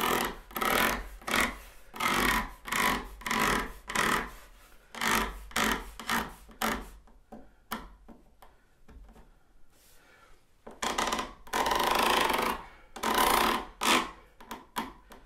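Tweezer tips scraping along the plastic ties of Micro Engineering flex track, a run of short strokes about twice a second, spreading bunched-up ties back to even spacing. After a quieter stretch, two longer rubbing strokes follow near the end.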